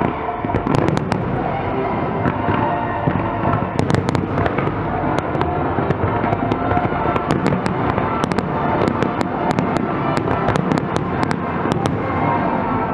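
A fireworks display: aerial shells bursting with rapid, sharp crackling pops, growing denser in the second half, over music playing along with the show.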